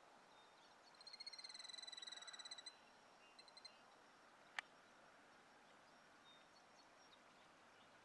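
A high, rapid trilling call, lasting nearly two seconds, followed by three short high notes. About halfway through comes a single sharp click.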